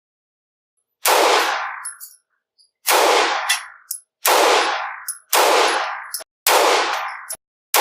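Taurus TH9 9mm pistol firing a slow string of single shots, about one a second, each with a sharp crack and a long ringing echo. Small metallic clinks come between shots.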